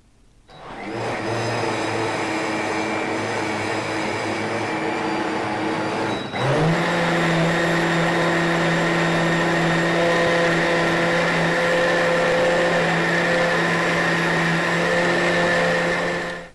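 OmniBlend high-power blender motor starting about half a second in and running steadily as it purées banana into almond milk. About six seconds in it dips briefly and comes back at a higher speed and pitch, then cuts off just before the end.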